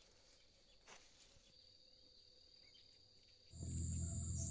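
Faint, steady high-pitched calling of insects such as crickets in a sweet potato field. About three and a half seconds in, a louder low rumble comes in under it.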